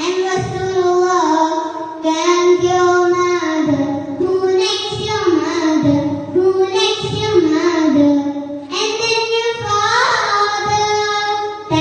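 A child singing a melodic song, moving between long held notes in phrases of one to two seconds.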